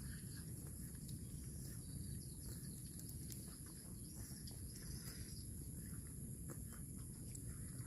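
Faint outdoor rural ambience: a steady high insect drone over a low rumble, with a few faint bird chirps and small clicks. No mooing.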